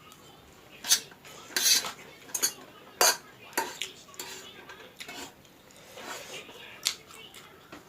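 Metal cutlery clinking and scraping against a dish while noodles are stirred and scooped up, in sharp separate clinks about every half second to second, with one longer scrape about a second and a half in.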